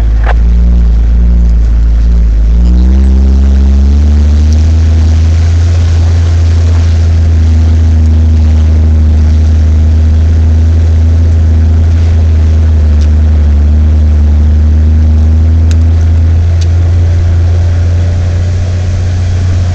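Nissan Patrol GR Y60's diesel engine heard from inside the cab while driving off-road; the revs rise about three seconds in, then hold steady, easing off slightly near the end, with a few faint clicks.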